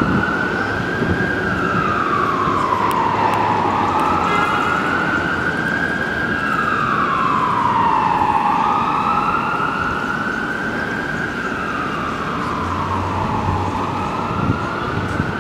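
Emergency vehicle siren sounding a slow wail: the pitch rises and falls, taking several seconds for each rise and each fall, with about two full cycles. It plays over a steady low rumble of city traffic.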